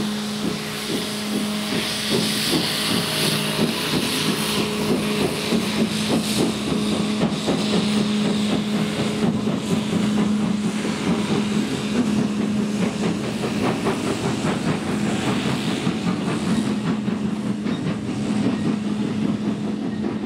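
Small industrial steam tank locomotive working a train of wagons, with steady exhaust beats and a hiss of steam over a continuous low drone. The beats come closer together after the first few seconds.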